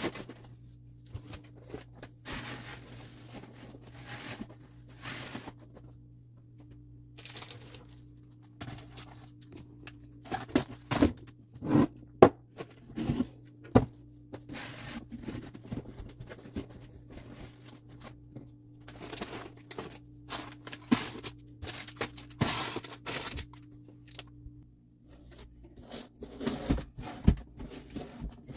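Snack packages and containers being handled and set down on a pantry shelf: crinkling plastic bags, scrapes and light knocks, in irregular bursts over a steady low hum.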